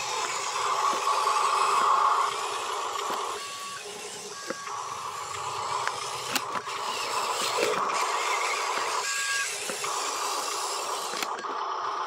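Huina radio-controlled dump truck's electric motor and gearbox whining steadily as it drives with a load of dirt. The whine cuts out briefly twice, about three and a half seconds in and again about nine seconds in, as the throttle is let off.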